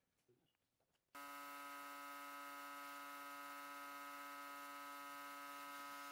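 Paint spray gun spraying wood finish: a steady buzzing hum with a hiss of spray over it, starting abruptly about a second in and cutting off abruptly at the end.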